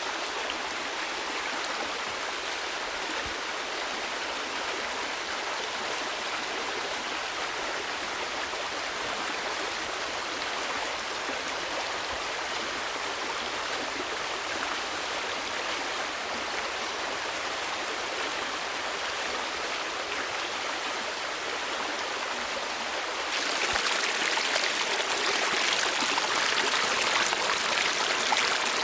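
Running water, a steady rushing hiss that suddenly grows louder and brighter about 23 seconds in.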